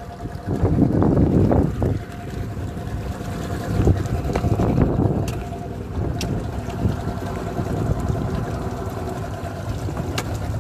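Wind buffeting the microphone over the steady hum of a small boat's engine, with water splashing. Two sharp knocks come about 6 and 10 seconds in.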